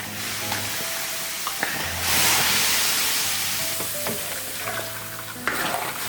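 Loquat flower syrup sizzling in a pan as it is stirred, swelling louder about two seconds in, with a few clicks of the utensil against the pan.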